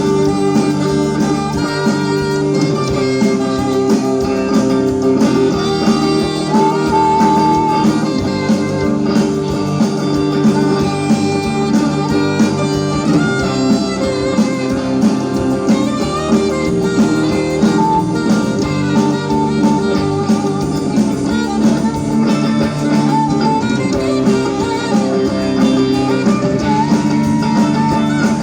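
Instrumental music: a saxophone plays the melody of a pop ballad over a backing track, with sustained held notes and no singing.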